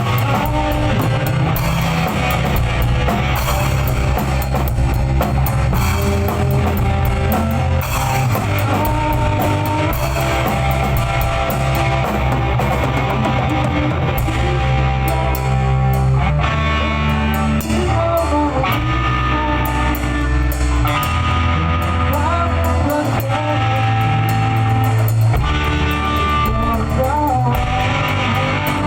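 Rock music with guitar and drum kit playing steadily over a heavy bass line, with a gliding melody line coming in about halfway through.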